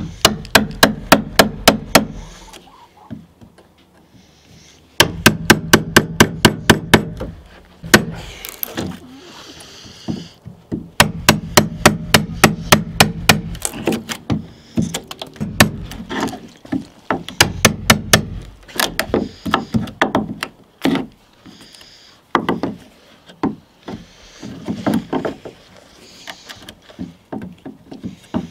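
A claw hammer taps a wood chisel in quick runs of about five strikes a second, with short pauses between the runs, chopping a shallow recess into a wooden frame. Between runs the chisel is pushed by hand, paring out the chips with a softer scraping sound.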